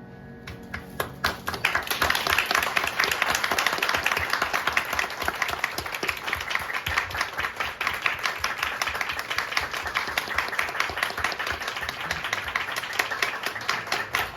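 Audience applause: dense clapping that starts about half a second in, builds over the next second or so and then holds steady, following the end of a piano piece.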